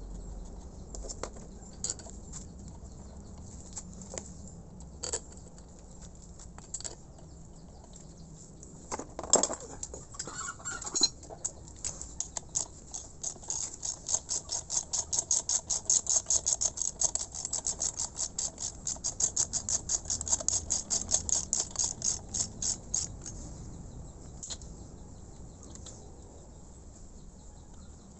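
Ratchet wrench clicking fast and evenly, about six clicks a second for roughly ten seconds, as bolts on an air compressor head are run down during reassembly. Before it come scattered clicks and a short clatter of metal tools.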